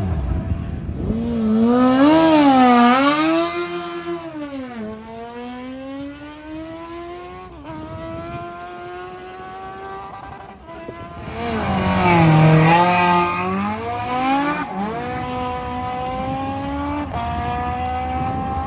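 Race engines of sprint vehicles revving hard and accelerating away down a quarter-mile strip, twice: the second run starts about eleven seconds in. Each time the pitch wavers up and down, then climbs steadily, dropping back at each gear change.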